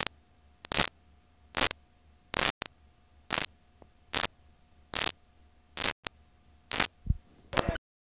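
Videotape playback running into blank, unrecorded tape: short bursts of static hiss come about once a second, ten in all, with a faint steady tone underneath.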